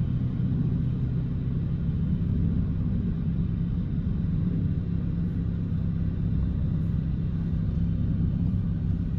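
Steady low rumble of a moving car, its engine and tyres heard from inside the car.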